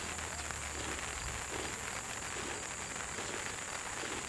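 Light rain falling, an even patter of fine drops, with a steady high-pitched drone behind it.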